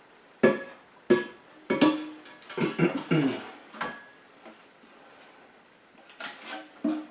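A run of sharp, irregular knocks and clunks, each with a short ringing tone, as the new porcelain toilet tank and bowl and their parts are handled and set against each other. They come in a cluster over the first four seconds, then again twice near the end.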